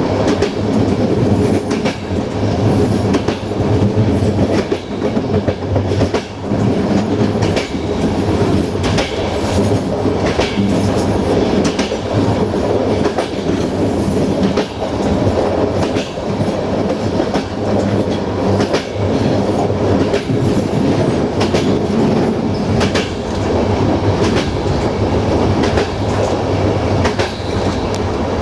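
Passenger train running at speed on jointed track: the wheels click over the rail joints again and again over a continuous rolling rumble, with a steady low drone underneath.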